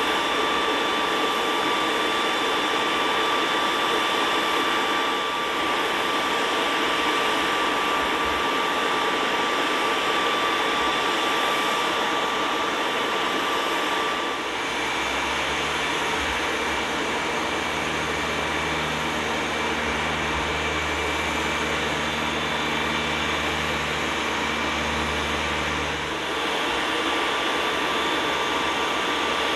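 Jet aircraft turbine engines running, a steady rushing noise with a high, even whine. About halfway through the whine shifts in pitch, and a lower hum joins for about ten seconds before fading.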